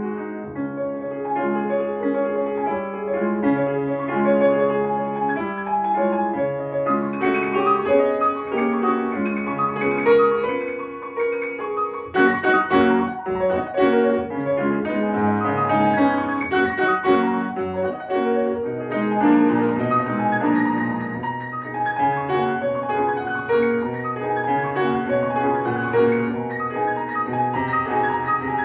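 Solo piano playing classical music: a continuous passage of chords and runs, busier and brighter in the upper register from about halfway through.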